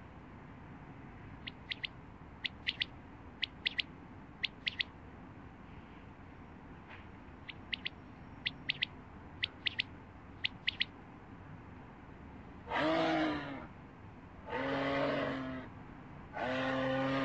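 Quail calling: short, sharp whistled notes in quick groups of two or three, repeated about once a second. About 13 seconds in, a moose takes over with three long, drawn-out calls, each a second or so long.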